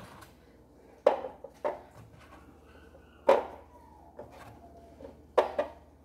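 Eggs clicking against a clear acrylic egg organizer and against each other as they are set into it one at a time: several sharp, irregularly spaced clicks, the loudest about three seconds in.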